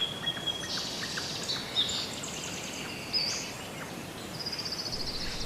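Several wild birds calling in gum woodland: high chirps and whistles, with a fast run of short repeated notes near the end.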